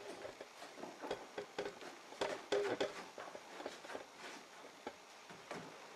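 Quiet, irregular light taps and clicks, a few every second, from small hard objects.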